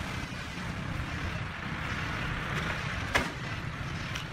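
Clay bricks handled and set by hand, with one sharp knock of brick on brick about three seconds in, over a steady background rumble and hiss.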